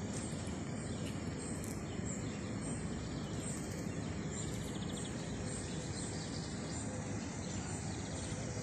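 Steady outdoor background noise, like a park's distant hum, with faint high chirps and a short rapid trill about four and a half seconds in.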